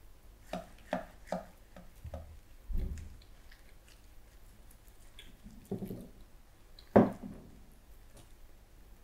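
Knife cutting through a grilled beef steak on a wooden board, the blade knocking against the board: a few quick knocks in the first two seconds, a dull thump around three seconds in, and one loudest sharp knock about seven seconds in.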